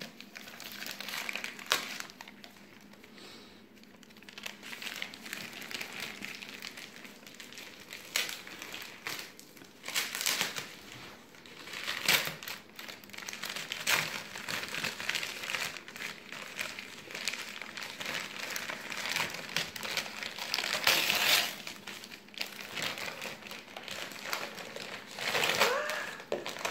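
Gift wrapping or packaging crinkling and rustling as a present is unwrapped, in irregular handfuls with louder crackly swells at several points.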